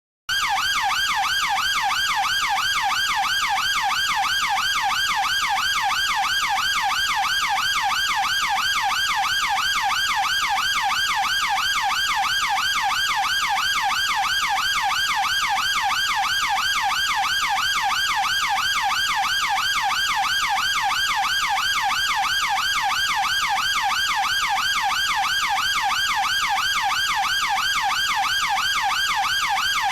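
UK police car siren in its fast yelp mode, the pitch sweeping rapidly up and down without a break. It cuts in abruptly just after the start, following a moment of silence.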